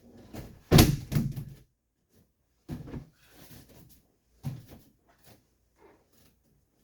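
Thuds and scuffs from a leg-sweep drill on a grappling dummy. There is a heavy thump about a second in with a quick run of knocks after it, then a couple of lighter thumps and a few faint clicks.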